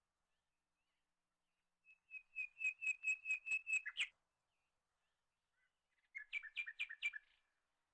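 A small bird singing two phrases of rapidly repeated chirps, about five notes a second: the first about two seconds long ends in a sharp upward note, and a shorter phrase follows about two seconds later.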